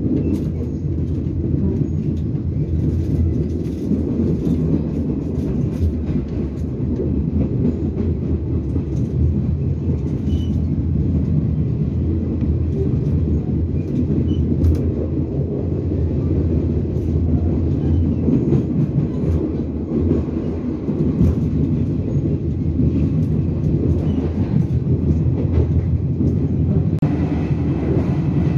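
Interior of a Taiwan Railways Chu-Kuang Express passenger coach running along the line: a steady low rumble of wheels on track, with scattered light clicks and rattles.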